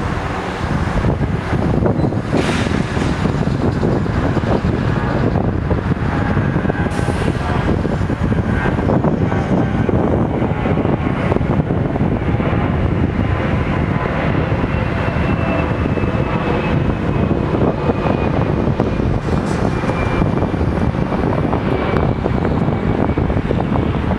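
Wind buffeting the microphone over a steady rumble of traffic and an approaching UP Express diesel multiple-unit train. A faint whine slowly falls in pitch during the second half.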